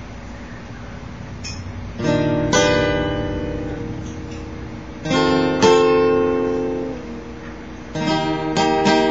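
Acoustic guitar strummed: a chord about two seconds in and another about five seconds in, each left to ring and fade, then quicker strumming from about eight seconds on.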